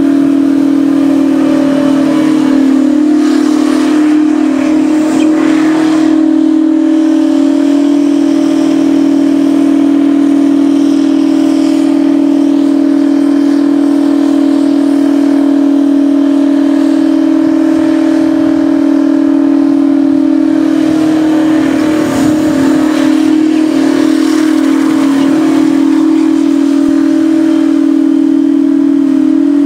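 Taylor Made twin-turbo V16 engine in a Mack drag truck held at steady high revs during a burnout: one loud, constant, whistle-like engine note that hardly changes pitch. The spinning rear tyres add a hiss over it.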